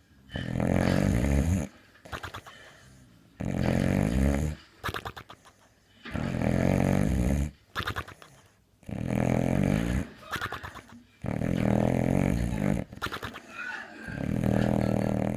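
Boxer dog snoring in a steady rhythm: six long, loud snores about two and a half seconds apart, each lasting about a second and a half, with quieter breathing between them.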